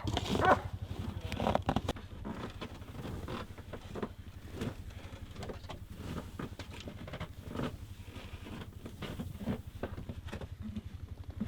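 An engine running steadily under scattered irregular crunches and knocks.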